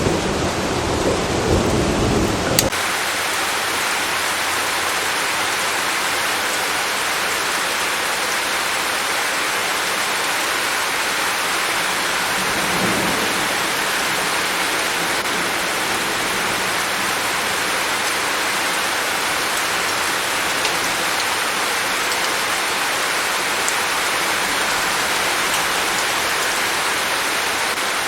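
Rain with a low rumble of thunder under it, which cuts off abruptly about three seconds in. After that comes a steady, dense hiss of heavy rain.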